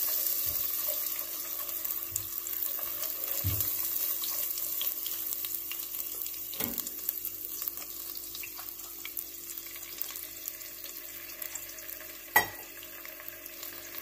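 Butter sizzling and bubbling as it melts into hot caramelized sugar in a stainless steel pot, with a fine steady crackle, stirred now and then with a silicone spatula. A single sharp click about twelve seconds in.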